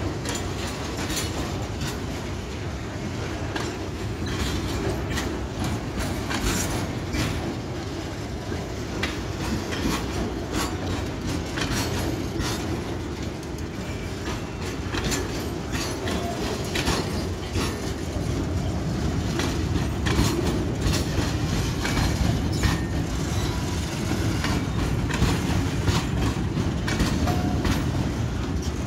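Railway oil tank wagons rolling past close by: a steady rumble from the steel wheels on the rails, with frequent sharp clicks as the wheels cross the rail joints.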